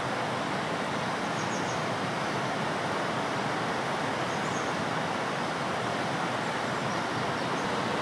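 Steady outdoor rushing noise with a few faint, short high chirps from small birds, about a second and a half in, about four and a half seconds in, and near the end.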